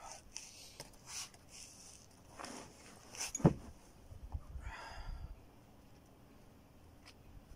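A climber's forceful breaths and exhalations as he hauls through moves on an overhanging boulder. There is a louder sharp sound, falling in pitch, about halfway through, as he reaches a hand to the next hold.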